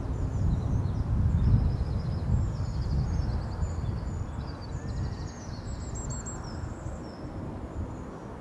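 Outdoor ambience: small birds chirping and trilling in repeated short phrases over a steady low rumble that slowly fades.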